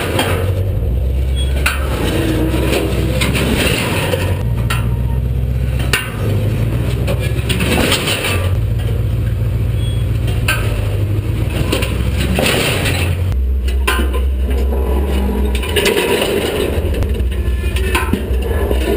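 A 454 big-block Chevy V8 engine running under shifting load as it drives a seven-ton steel walking machine on Klann-linkage legs, with repeated metal clanks and scrapes from the moving legs and feet.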